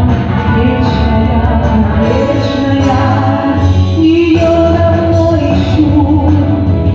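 A woman singing a song with long held notes over an instrumental backing track with a steady bass.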